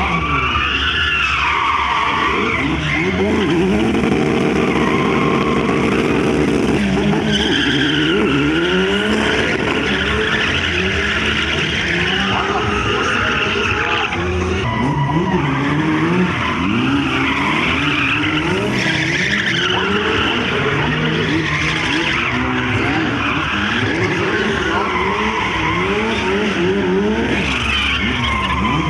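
Drift cars' engines revving hard, pitch climbing and dropping again and again as the throttle is worked, with tyres squealing and skidding as the cars slide sideways. About three seconds in, an engine is held at steady high revs for several seconds.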